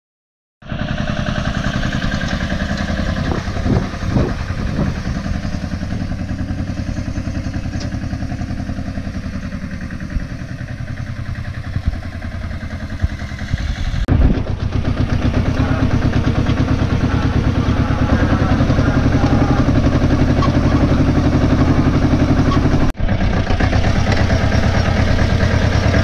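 Tractor engine running steadily while the tractor drives along carrying the harvest, starting about half a second in. The sound breaks off for a moment twice and is louder in the second half.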